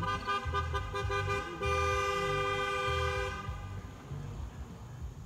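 A car horn sounding one long held honk for about three and a half seconds, a steady tone of two close notes, then dying away.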